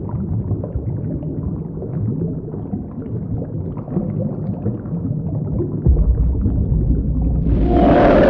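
Underwater bubbling-and-rumble sound effect: a low, gurgling rumble with small crackles. A deeper rumble comes in about six seconds in, and a louder swell with a low moaning tone rises near the end.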